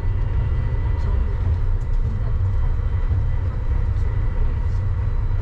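Uijeongbu Light Rail train, a rubber-tyred VAL driverless car, running along its elevated guideway, heard from inside the car: a steady low rumble with a faint constant whine above it.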